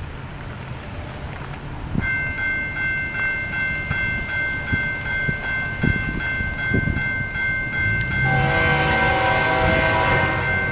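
Level-crossing warning bell starts ringing about two seconds in, a steady high ringing. Just after eight seconds the approaching freight train's lead locomotive, a CP AC4400CW, sounds its multi-note air horn for the crossing.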